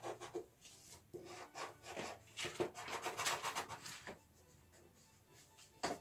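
A pastel crayon scraping across paper in quick back-and-forth drawing strokes, then a pause and a single sharp tap near the end.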